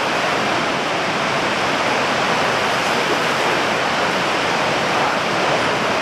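Niagara's Horseshoe Falls: a huge volume of water pouring over the brink, heard close up as a steady, unbroken rush.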